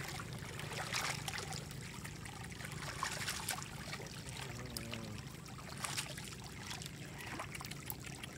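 Hands splashing and sloshing in shallow muddy floodwater while grabbing for a fish, with several sharper splashes.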